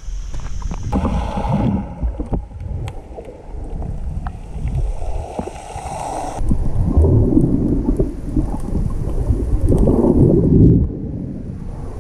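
Muffled rushing and rumbling of sea water around a camera held underwater while snorkelling, swelling louder just past halfway and dropping back near the end.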